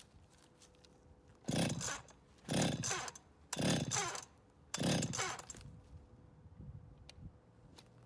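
Antique Stihl chainsaw being pull-started: four quick pulls on the starter rope about a second apart, each turning the two-stroke engine over briefly without it catching. It is a cold start after more than a year unused, on fresh fuel.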